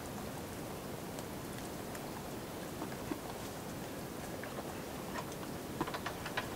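Chickens pecking grain mash off a board: scattered light clicks and taps of beaks, with a quick cluster of taps near the end, over a steady low hiss.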